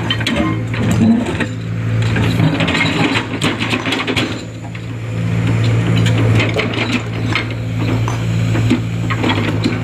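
Diesel engine of a Sumitomo hydraulic excavator running steadily under load, with frequent clanks and scraping clatter as it pushes and drags a large boulder. The engine eases off about four and a half seconds in and picks up again a second later.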